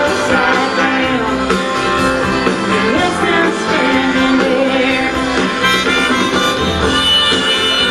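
Live country-rock band playing, with an acoustic guitar strummed under a sustained lead melody line.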